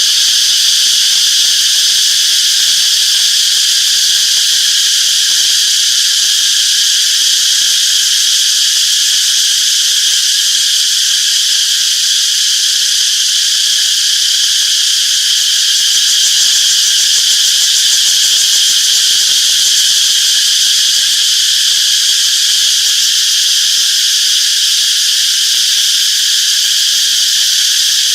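Chorus of cicadas buzzing, a loud, steady, high-pitched drone with no breaks.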